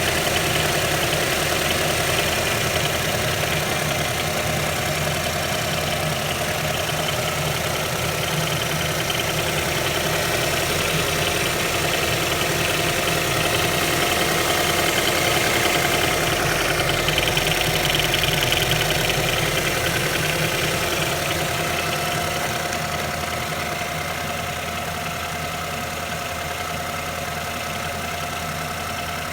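Ford EcoBoost turbocharged petrol engine idling steadily with a knock, about a minute after being started. It gets a little quieter in the last few seconds.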